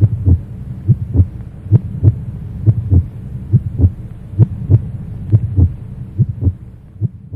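Heartbeat sound effect: a double low thump, a beat and a quick echoing beat, repeating evenly a little faster than once a second, growing fainter near the end.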